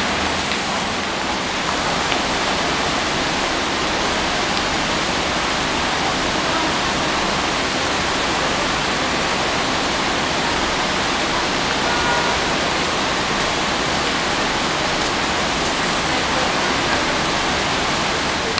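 Steady, even rushing noise with no distinct events and no rise or fall.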